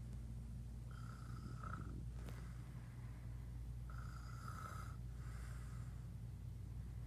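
Snoring in slow rhythm: two snores about three seconds apart, each under a second long with a thin high whistling note, followed by a breath.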